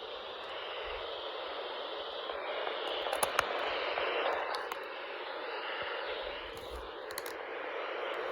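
Weather radio receiver hissing with static, a steady rush of noise with no tone or voice in it. A couple of brief clicks come about three seconds in.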